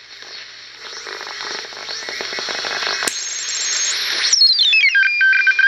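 Shortwave hiss and static from a BC-454B receiver as its dial is tuned, growing louder, with a sharp click about three seconds in. Near the end a whistle slides down in pitch in steps and settles into several steady tones: a data signal, probably teletype.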